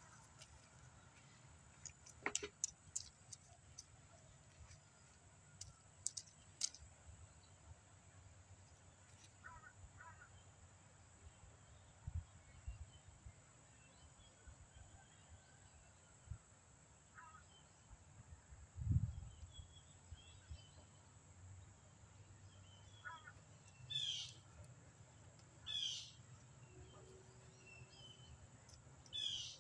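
Faint outdoor ambience with scattered bird calls, the loudest three coming near the end about two seconds apart. A few sharp clicks sound in the first several seconds, and a single low thump about two-thirds of the way through.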